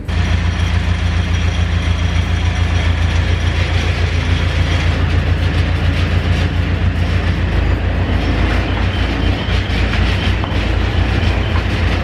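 Mustang 940E skid steer running and driving slowly forward, with a steady low engine drone and mechanical clatter.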